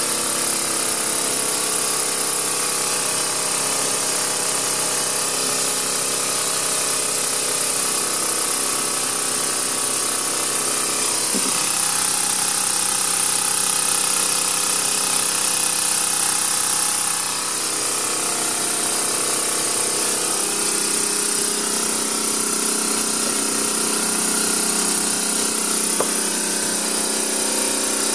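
Small homemade steam engine running fast at full throttle, a steady mechanical whine with steam hissing over it.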